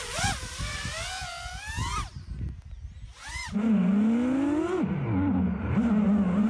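FPV racing quadcopter's brushless motors whining, the pitch rising and falling with the throttle as it lifts off and flies low. After a cut about three and a half seconds in, the motors are heard as a lower, wavering drone that dips and climbs with the throttle.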